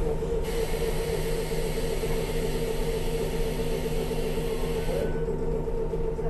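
Interior sound of a Pacific Electric 'Hollywood' electric streetcar running: a steady mechanical hum. A loud hiss joins in about half a second in and stops abruptly about five seconds in.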